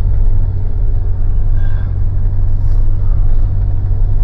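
Mitsubishi Pajero with its 4M41 diesel engine, driving along and running normally without stalling: a steady low drone of engine and road noise.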